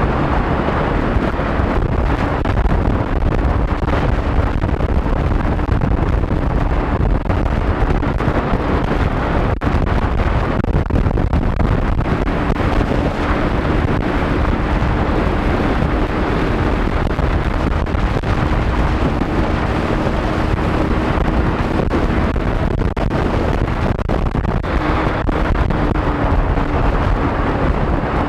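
Motorcycle running at steady speed on the open road, its engine drone under heavy wind rush and buffeting on the microphone.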